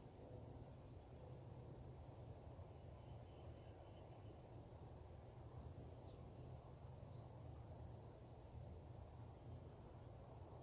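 Faint birds chirping, a few short high calls scattered here and there, over a steady low rumble of outdoor background noise.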